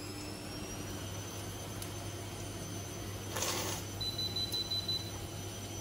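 A knife scraping through a carrot on a plastic cutting board, once, about three and a half seconds in, over a low steady hum. A faint high tone sounds briefly just after.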